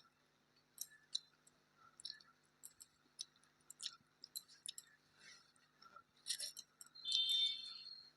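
Scattered soft clicks and light clinks of someone eating a rice meal, with a brief high-pitched squeak about seven seconds in.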